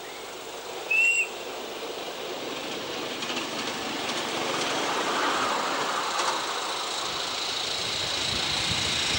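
Ridable live steam miniature railway train passing on its track: a short high whistle about a second in, then the running noise of the train and its wheels on the rails swells as it draws near and goes by.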